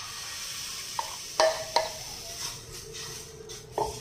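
Besan batter sizzling as it is poured onto a hot iron tawa, the hiss starting suddenly. A steel spoon clinks against the metal several times as it spreads the batter.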